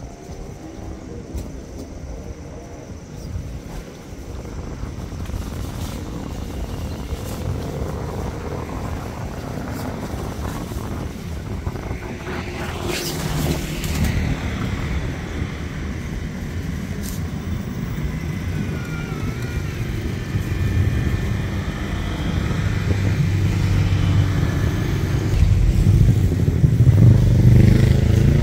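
Motor vehicle engine running, with a low rumble that grows steadily louder toward the end and a brief rise and fall about halfway through.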